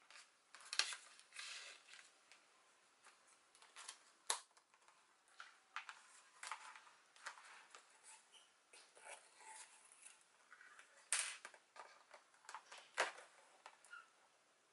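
Cardstock pages and flaps of a handmade scrapbook album being turned and handled: faint, scattered paper rustles and light taps, with a few sharper clicks.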